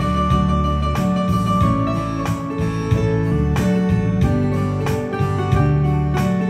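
Background music: an acoustic guitar track with plucked and strummed notes at a steady pace.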